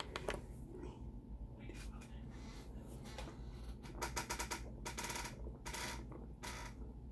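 Water being chugged from a plastic gallon jug: a run of short gulping and crackling sounds from the mouth and the thin plastic jug, thickest from about four seconds in.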